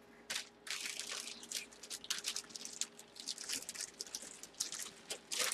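Packaging crinkling and rustling in quick, irregular crackles as a football helmet is handled.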